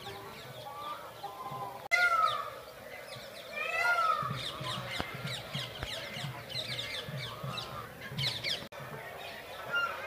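Many caged birds chirping together in an aviary. A larger bird gives two loud, arching honk-like calls, about two and four seconds in.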